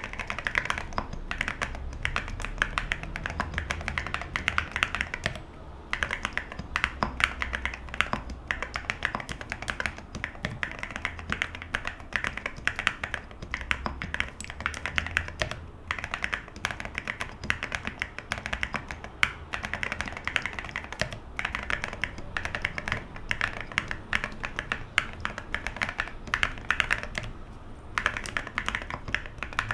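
Typing on a Geonworks Frog Mini mechanical keyboard with hand-lubed OwLab London Fog switches, an aluminum plate and Cerakey ceramic keycaps: a dense, steady run of deep, thocky keystrokes. There are brief pauses about five seconds in and near the end.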